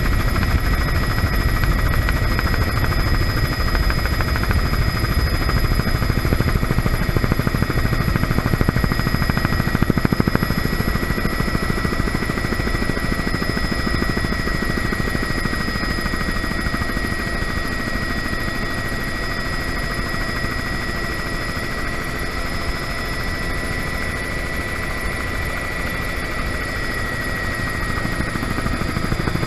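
Bell 206B3 JetRanger helicopter in flight: the steady high whine of its Allison 250 turboshaft over the main rotor's low, continuous rumble.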